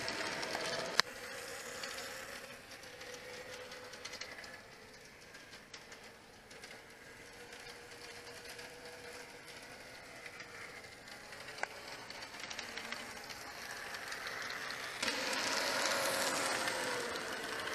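N gauge model train running on the track, its small motor whirring and the wheels rattling over the rails. There is a sharp click about a second in, and the sound grows louder from about fifteen seconds in as the train passes close by.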